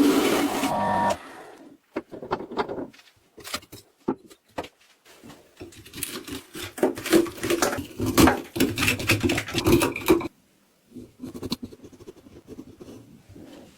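A motor running steadily stops about a second in. Irregular knocks, clicks and short scraping and rubbing sounds of wood being handled and worked by hand follow.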